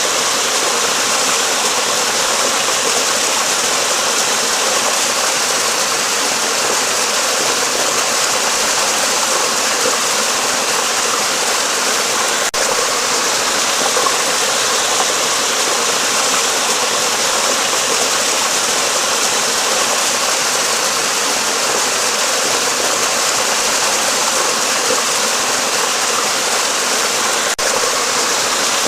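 Stream water running steadily under a bridge, a continuous even rushing hiss with little deep rumble.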